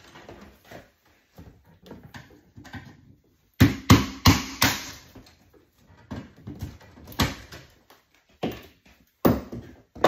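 Knocks and rustling of hands working stiff cable and a screwdriver in a metal breaker panel enclosure: four sharp knocks in quick succession about three and a half seconds in, then several more single knocks spaced about a second apart, with light rustling between them.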